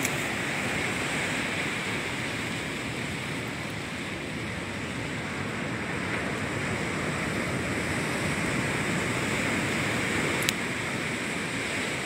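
Sea surf washing steadily on the shore, with one sharp click about ten and a half seconds in.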